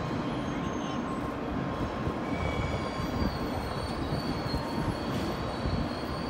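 N700A Shinkansen trainset starting to pull away from the platform: a steady rumble with a high electric whine from its traction motors that sets in about two seconds in and rises slowly in pitch as it gathers speed.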